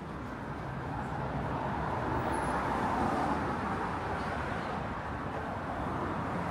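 City street traffic noise: a steady wash of passing vehicles, swelling louder a couple of seconds in as a vehicle goes by, then settling back.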